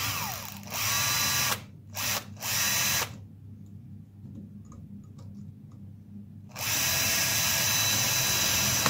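Cordless drill drilling a hole through a shotgun cartridge held in a vise, the bit working in a pre-made indent so it bites. It runs in several short bursts in the first three seconds, pauses, then runs steadily near the end as the bit breaks through.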